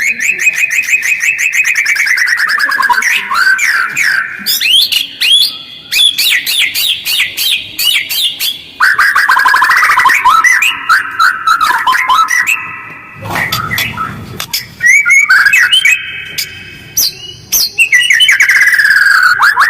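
White-rumped shama (murai batu) singing a rough, fast song: rapid runs of repeated notes and falling rattling phrases, separated by short pauses.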